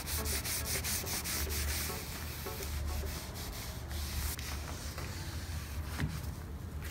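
Quick, continuous hand scrubbing on a Jeep Renegade's rubber door seal with diluted cleaner, a steady rasping rub made of many short strokes. The dirt is being cleaned off the seals to stop them squeaking.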